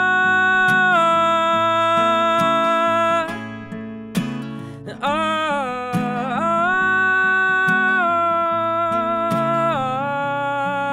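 Song with a strummed acoustic guitar under a man's long, held sung notes that step from one pitch to the next. The voice drops out for about a second and a half a little over three seconds in while the guitar carries on.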